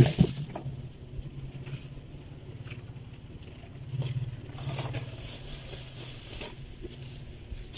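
A stick scraping and stirring in a large metal pot, in uneven scratchy patches that are busiest near the middle, over a faint steady low hum.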